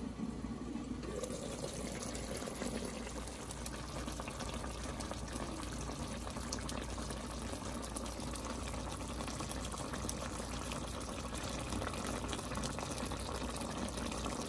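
Pork stew simmering in a pan, its dark sauce bubbling steadily with many small pops.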